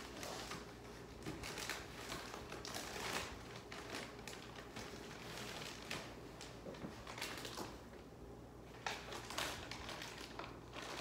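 Irregular crinkling and crackling handling noises, a run of small uneven clicks and rustles.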